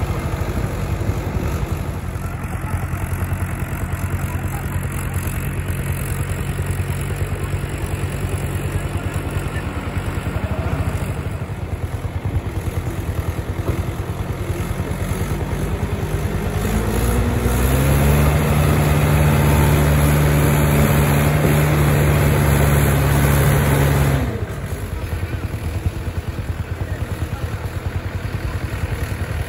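Mahindra 575 DI tractor's four-cylinder diesel engine running steadily under heavy load, pulling a fully loaded sugarcane trailer. About halfway through the engine note climbs and gets louder for several seconds, then drops back suddenly.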